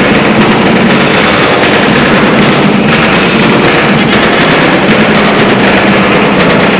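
Loud show music with rapid, driving drumbeats that overload the recording into a dense, distorted clatter.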